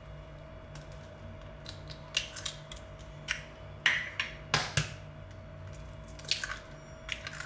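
Eggs cracked against a stainless steel bowl and broken open onto soft margarine: several short sharp cracks and taps with wet squishes, the loudest just after the middle.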